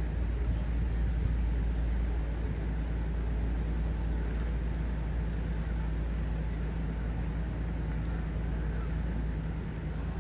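Tour boat's engine idling with a steady low rumble and hum.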